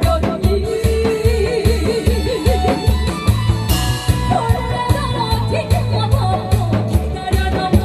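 A singer singing a trot-style song with wide vibrato over a backing track with a steady drum beat.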